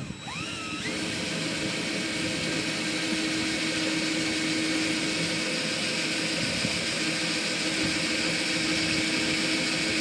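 A motor runs steadily, coming up about a second in and then holding an even level with a constant hum and whine.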